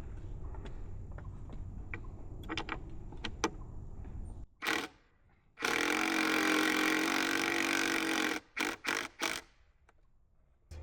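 A power driver runs steadily for about three seconds, driving a lag bolt into a wooden post, then gives three short bursts.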